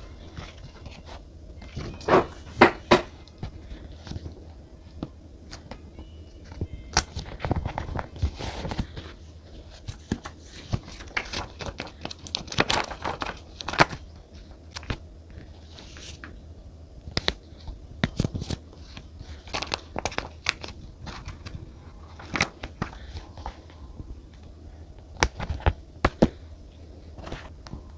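Paper and stickers handled on a desk while journaling: scattered rustles, crinkles and short taps, with a few louder crackles like paper or sticker backing being peeled or torn.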